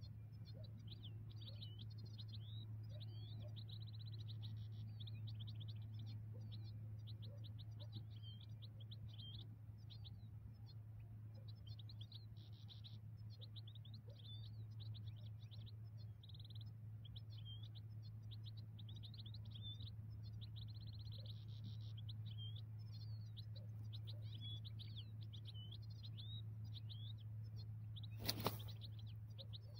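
European goldfinch singing a continuous, rapid twittering song, over a steady low hum. A single sharp knock comes near the end.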